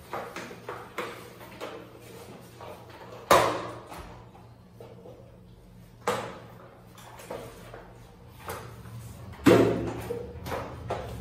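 Spin mop wiping and scraping across ceramic floor tiles, with a run of short scrapes and several sharp knocks, the loudest about three seconds in and again near the end.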